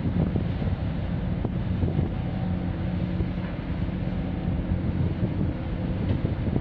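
Large container ship CMA CGM Mundra passing close by, its engines giving a steady low drone with a few held tones. Wind noise on the microphone.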